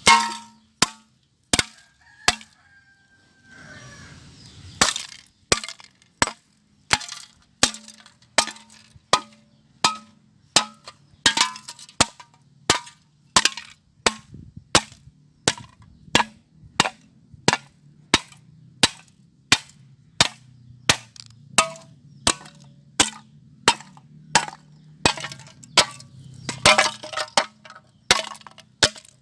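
Metal can being struck again and again, sharp knocks with a short ring, about one every two-thirds of a second, with a pause of a couple of seconds early on.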